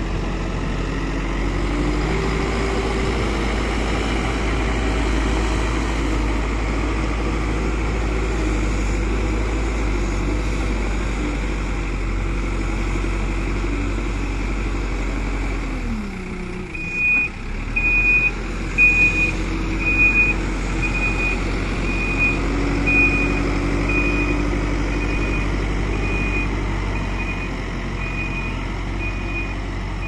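Manitou backhoe loader's diesel engine running and revving as it works soil, its pitch dropping sharply about halfway through. Then its reversing alarm beeps about once a second, growing fainter.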